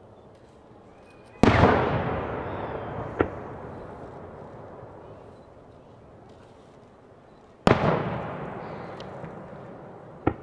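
Two firework shells bursting in the sky about six seconds apart. Each loud boom is followed by a long rumbling echo that slowly fades, and by a smaller sharp crack a couple of seconds later.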